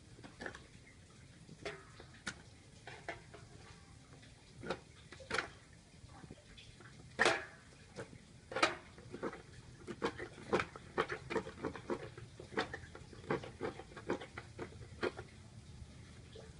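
A series of irregular sharp knocks and clicks. They are sparse at first and come several a second from about ten seconds in.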